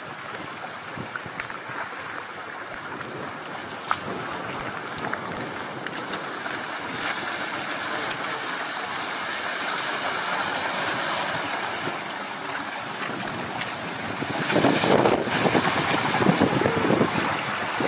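Wind on the microphone over the rushing water of sailboats passing close by, their bows throwing up a wash. About two-thirds of the way through, the wind turns gusty and louder, buffeting the microphone.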